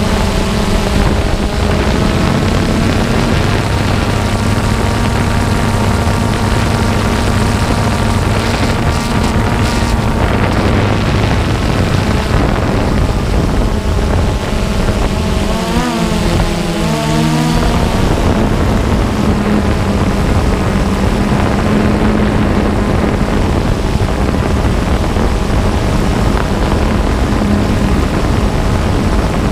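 Multirotor drone's motors and propellers whining steadily, picked up by its onboard camera, over a rushing hiss. About halfway through, the pitch wavers up and down for a couple of seconds as the motors change speed.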